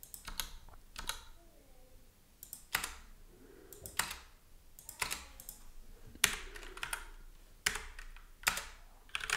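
Computer keyboard typing: irregular keystrokes, some single and some in short runs, with pauses of about a second between them.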